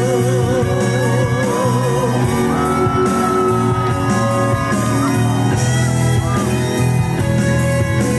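Live band playing a rock ballad's instrumental interlude: a long sung note with wide vibrato for about the first two seconds, then bending lead lines, likely electric guitar, over the band.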